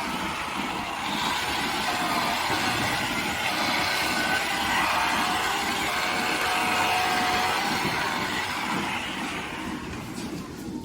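Steady mechanical noise of machinery running, a dense rumble and hiss with a faint whining tone in it.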